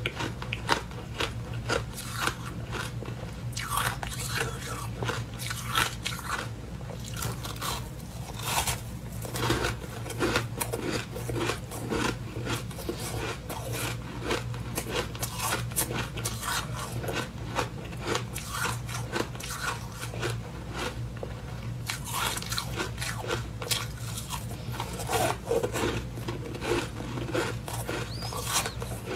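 Freezer frost being bitten and chewed: a dense, irregular run of crisp crunches, with a steady low hum underneath.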